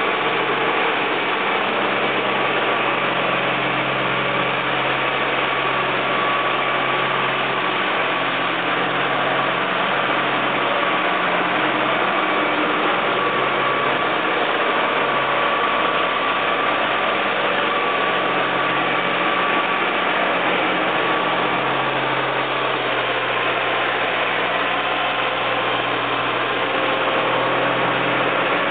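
Fiat tractor's diesel engine running at a steady speed, heard close up.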